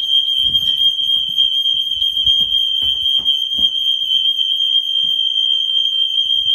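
An electronic alarm sounding one continuous high-pitched tone without a break. A few faint knocks underneath in the first half.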